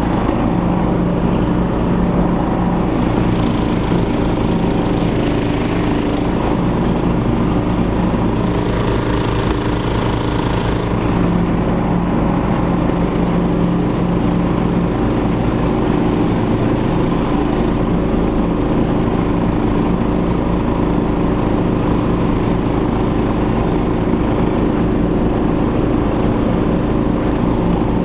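Snapper SR1030 riding mower's engine running steadily under load as it cuts grass, heard from the driver's seat.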